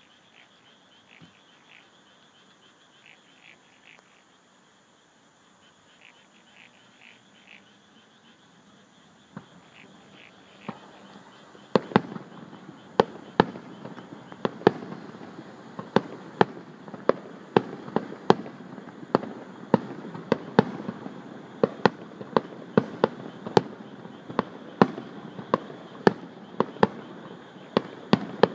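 Night insects and frogs chirping faintly in short pulsed bursts, then aerial firework shells going off: a few booms about ten seconds in, and from about twelve seconds a rapid volley of sharp bangs, roughly two a second, with a continuous din between them.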